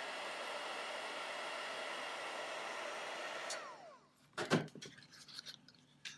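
Craft heat gun blowing steadily, heating a piece of shrink plastic, then switched off about three and a half seconds in, its fan winding down in a falling whine. A few short knocks and rustles follow as the shrunk piece is tipped out of the cardboard box onto a gloved hand.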